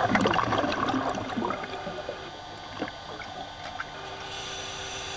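Underwater bubbling and gurgling from scuba divers' exhaled air. It is loudest in the first second or so, then eases into softer, scattered crackling bubbles.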